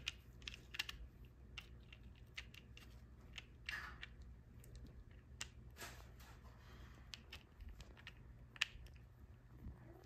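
Faint, irregular small clicks and clinks with brief rustles as the metal planetary gears of a cordless drill gearbox are worked into their plastic housing by gloved hands.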